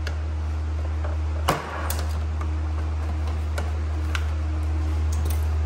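Brittle plastic push-pin clips of a Jeep Grand Cherokee door trim panel cracking and popping as the panel is pried off. One sharp loud crack comes about a second and a half in, then several lighter clicks, over a steady low hum. The clips are old and brittle, and some of them break.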